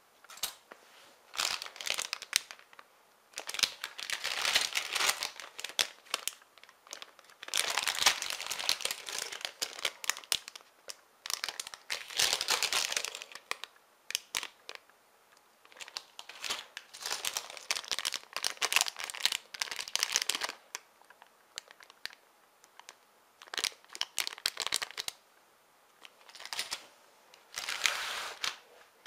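Clear plastic bags of Lego bricks crinkling as they are handled, in bursts of one to three seconds with short pauses between.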